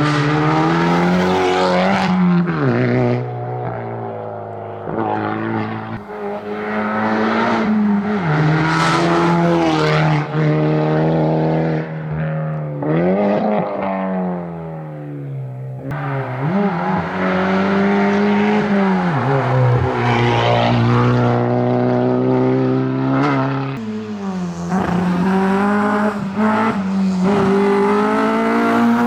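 Hyundai i30 N rally car's engine at full throttle, climbing in pitch through the gears with sharp drops at each shift, and easing off into falling pitch several times for corners. Near the end a second rally car takes over, revving through its gears the same way.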